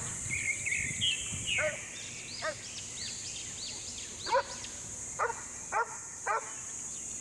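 Doberman on a leash barking aggressively at another dog, about seven short, sharp barks that come irregularly, the loudest a little past the middle.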